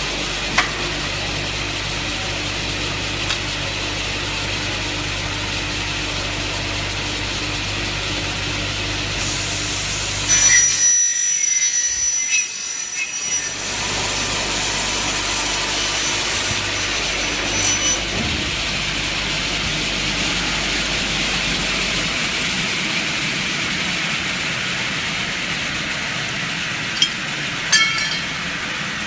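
Double-head aluminium cutting saw with 450 mm blades and 2.2 kW motors running, cutting aluminium profile dry without coolant: a steady motor hum, then about ten seconds in a louder cutting passage with a high ringing tone that lasts several seconds. A few sharp clicks come near the end.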